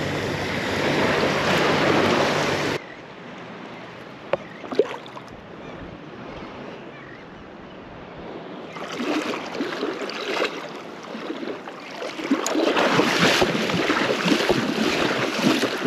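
Shallow surf sloshing and splashing close to the microphone, with wind on the microphone. It drops off abruptly about three seconds in and builds up again after about nine seconds.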